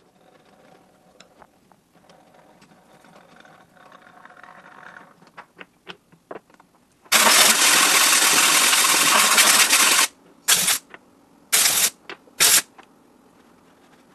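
Compressed-air blow gun blasting chips out of a lathe's 3-jaw chuck and scroll: one loud, steady hiss of about three seconds, then three short blasts.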